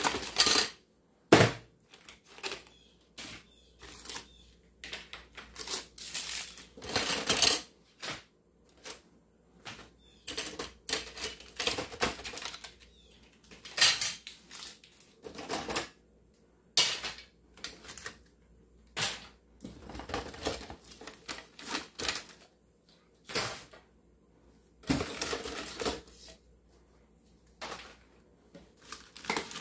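Irregular clatter and rustle of small items being taken out of a cluttered kitchen drawer by hand. Hard objects clack and knock and plastic packaging crinkles in short bursts with pauses between, and the sharpest clack comes about a second and a half in.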